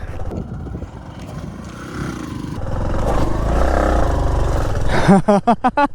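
Bajaj Platina motorcycle engine revving hard as the bike climbs a steep dirt slope, building about two seconds in. Near the end, voices shout.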